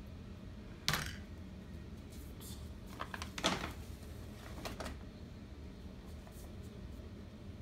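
A large paper gift bag and a cardboard toy box being handled as a small child lifts the boxed toy out of the bag: a few scattered knocks and rustles, the loudest about a second in and a cluster around three to three and a half seconds in.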